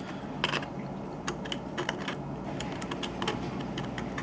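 A sharp tool scraping and clicking against the camera-lens opening of an iPhone 7 Plus, cleaning off old adhesive. The clicks are small and come at irregular intervals, over a low steady hum.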